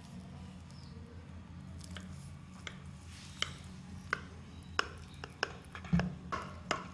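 Kitchen knife cutting through a baked cheese-topped pasta bake in a glass baking dish, the blade clicking sharply against the glass. The clicks come more often from about halfway in and are loudest near the end, over a steady low hum.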